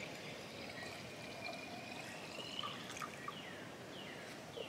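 Water being poured from a glass jar into a glass mason jar of liquid: a steady trickle with a faint tone rising in pitch.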